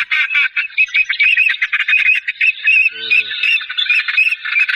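A flock of birds calling over one another, a dense, continuous chatter of short squawks and chirps.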